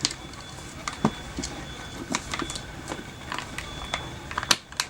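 Scattered clicks and knocks of the CAA RONI pistol-to-carbine conversion kit being handled as its parts are pulled forward and worked. A sharper knock comes just before the end.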